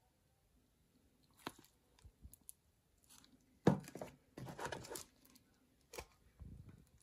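Handling noise of a thin plastic tub held in the hand: a sharp click, scattered ticks, then the loudest crackling and crinkling a little past the middle, another click and a soft rustle near the end.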